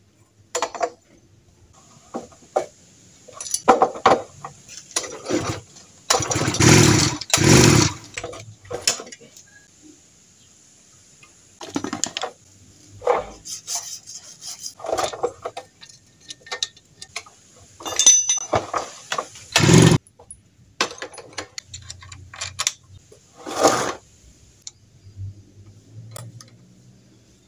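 Metal parts of a two-stroke brush cutter engine clicking, knocking and clattering as they are handled and fitted together during reassembly, with a few louder, longer bursts of clatter. The engine is not running.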